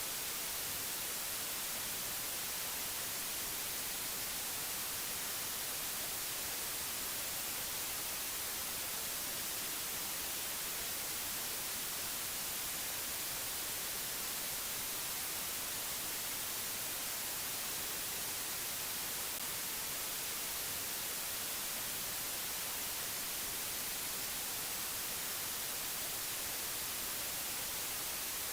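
Steady, unchanging hiss, thin and bright in tone, with no other sound in it.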